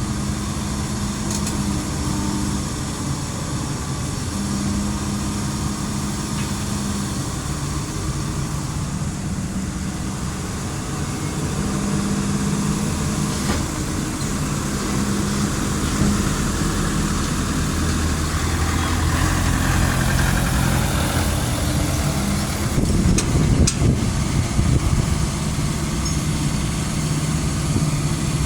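Heavy truck engine idling and running at low speed, its hum rising and falling, with a few louder knocks near the end.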